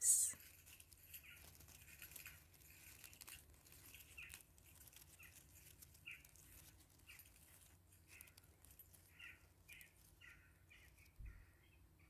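Oak leaves on a twig rustling softly as they are handled between the fingers, a run of short, quiet crinkling rustles. A soft bump near the end.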